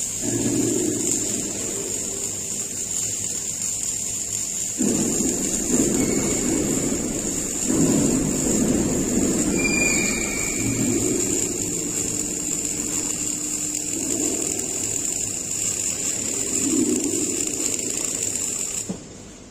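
MIG welding arc on steel crackling and sizzling in uneven surges, over a steady high-pitched whine. Both cut off suddenly near the end as the weld stops.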